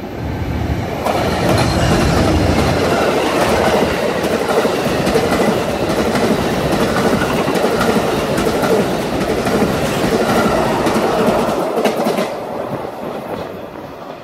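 Amtrak's California Zephyr, a diesel locomotive with bi-level Superliner cars, passing close by at speed: a heavy rumble with steady wheel clatter over the rail joints. It swells about a second in and fades as the train recedes near the end.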